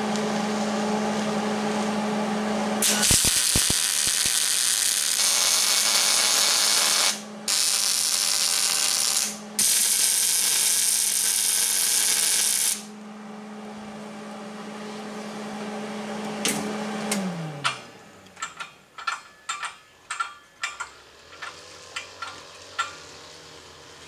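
MIG welder tacking a square steel tube to a steel plate: three bursts of arc crackle, about four, two and three seconds long, over a steady hum. The hum drops in pitch and dies away a few seconds after the last weld, followed by a run of short clicks.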